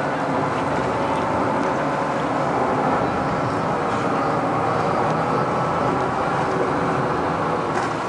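Passenger ferry's engine running steadily as the boat comes alongside the pier.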